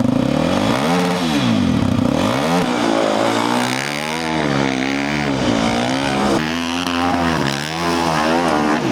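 400cc Yamaha dirt-bike engine in a golf cart, revved up and down again and again while it warms up: two long rises and falls first, then a run of quicker blips.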